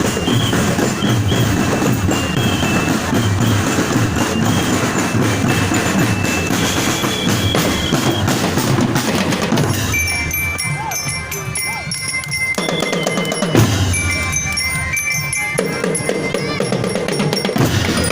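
Drum-led music, with bass drum and snare, played continuously. About ten seconds in it thins out for a few seconds to a few high held tones, then fills in again.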